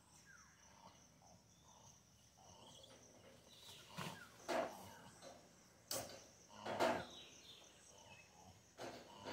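Outdoor ambience with a steady high insect drone, like crickets, broken by several short, loud, sharp sounds: two about four seconds in, two around six to seven seconds in, and one near the end.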